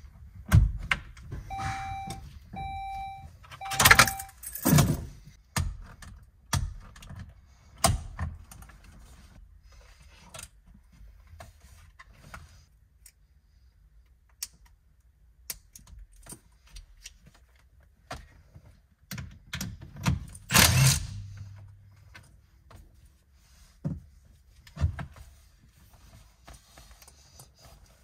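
Scattered clicks, knocks and rattles of plastic and metal as the airbag module is unclipped from a Saab 9-3's steering wheel and the wheel is taken off. Three short electronic beeps come about two seconds in, and a louder clattering knock comes about two-thirds of the way through.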